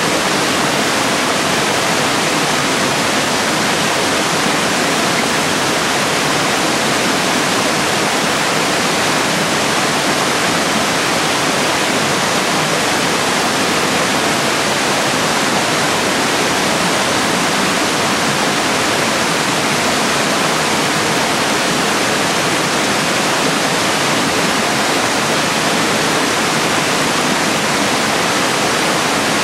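Small waterfalls cascading over rock ledges in a narrow gorge: a steady, even rush of falling water that does not change.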